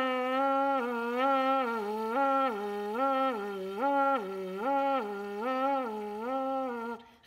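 Trumpet played with its tuning slide removed, so only the lead pipe sounds: a sustained buzzing note bent down and back up about once a second, over and over, as a lip-buzzing warm-up. The note breaks off briefly near the end and starts again.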